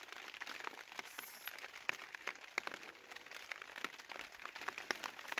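Scattered, irregular light ticks and crackles from the tent's plastic sheeting, several a second over a faint hiss.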